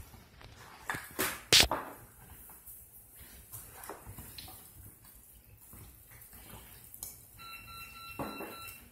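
Faint wet squishing of hands working seasoning into raw pork chops in a ceramic dish. A sharp knock about a second and a half in is the loudest sound, and a brief steady tone sounds near the end.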